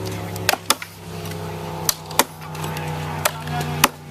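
Axes chopping into wood: about six sharp, irregularly spaced strikes as choppers cut springboard pockets into standing logs, over a steady low hum.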